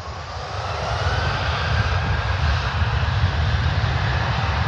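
Jet airliner's engines at takeoff power during the takeoff roll: a whine that rises in pitch over the first second or so, with the engine noise growing louder over a heavy rumble.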